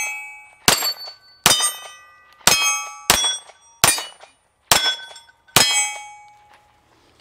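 Walther PPQ M2 9mm pistol firing seven shots at a steady pace, a little under one a second, each followed by the ringing clang of a struck steel plate target.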